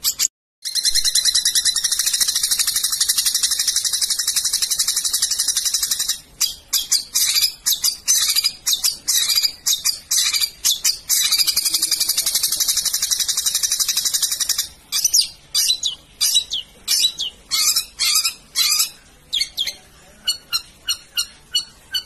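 Long-tailed shrike (cendet) singing: a dense, high, rapid trill that runs for about five seconds, then a run of quick sharp notes, then a second long trill. After that come separate sharp notes, spaced further apart and quieter toward the end.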